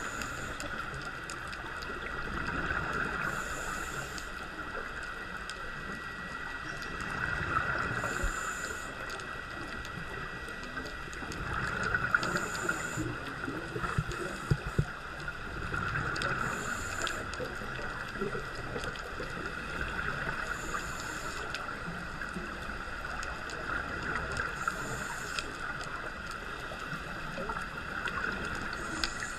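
Scuba diver breathing through a regulator, heard from inside a GoPro housing: a short hiss on each breath in and a swell of exhaled bubbles, repeating about every four seconds. A few sharp knocks come near the middle.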